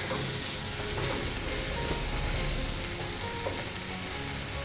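Food sizzling in a frying pan on a gas stove, stirred with a ladle, with a few faint scrapes and ticks.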